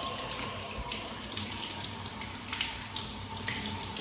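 Tap running steadily into a sink, with a few brief splashes as an arm is rinsed under the stream.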